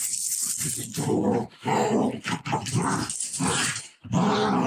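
A dog growling in several rough bursts with brief pauses between them.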